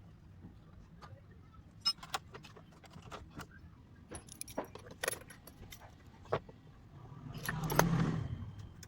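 Scattered light metallic clicks and clinks of small metal parts or keys being handled. About seven seconds in, they build into a louder clatter over a low hum.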